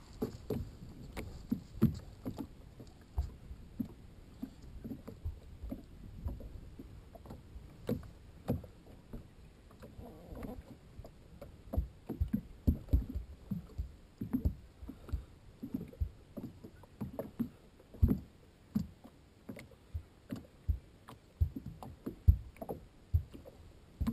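Small waves slapping against a motorboat's hull in irregular knocks, about one or two a second.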